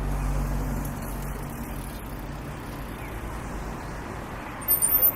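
A motor vehicle passing on a city street, its low engine rumble fading after two or three seconds over steady street noise. Near the end comes a sudden burst of short, loud, high-pitched sounds.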